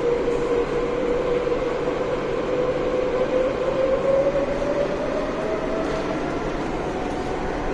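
RapidKL Monorail four-car train running along its elevated track, heard from on board: a steady motor whine over continuous rolling noise, the whine rising slightly in pitch a few seconds in and then fading.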